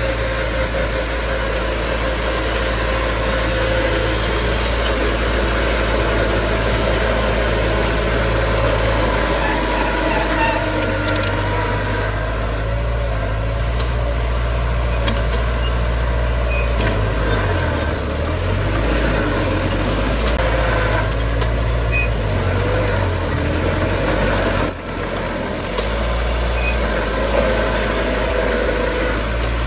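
Heavy diesel earth-moving machinery running steadily under work, with a deep engine sound that shifts in pitch as it works and dips briefly about 25 seconds in.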